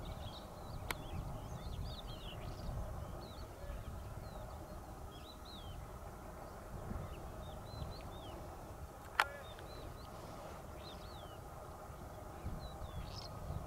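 Small birds chirping repeatedly in short, quick calls over a low, steady rumble. A sharp click about a second in, and a louder one about nine seconds in.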